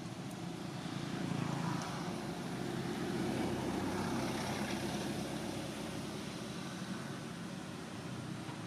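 Low, steady rumble of a motor engine, building over the first few seconds and easing off toward the end.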